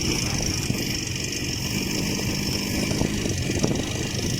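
IZh Jupiter-5 motorcycle's two-stroke twin-cylinder engine running steadily, with no revving up or down.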